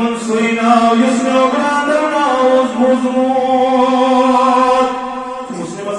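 A man's voice chanting in a sung, melodic style, holding long notes that step from pitch to pitch; a preacher breaking into chanted verse mid-sermon.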